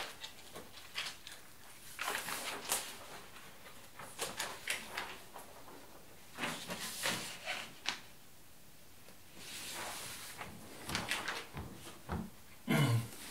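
Packaging being handled while a computer monitor is unpacked: irregular rustling, scraping and knocking of plastic wrap and cardboard, with a louder handling noise near the end.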